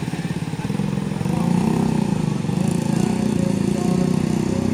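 Small motorcycle and scooter engines running at low speed as several bikes move past close by.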